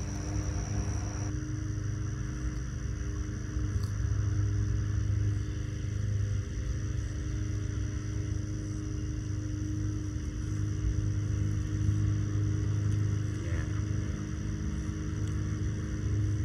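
A steady low mechanical hum, like an engine or motor running at a constant speed, with no rise or fall.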